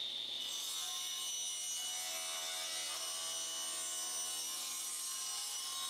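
Table saw running steadily as it rips the uneven edge off a softwood board.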